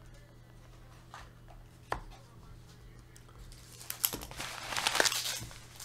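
Hands handling cards and paper on a padded table mat. A single tap comes about two seconds in, then about two seconds of rustling and crinkling near the end.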